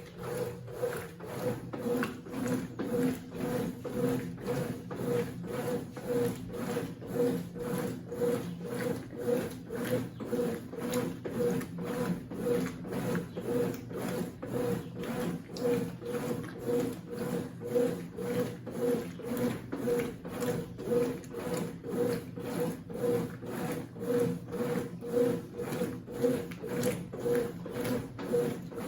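Consul CWC08 top-load washing machine agitating a load, its motor humming and the wash churning in a steady back-and-forth rhythm of about two strokes a second.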